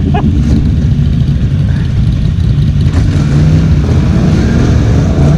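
ATV engine running under throttle as the quad drives through a water-filled mud rut, with its pitch rising and falling a little, mixed with water and mud splashing.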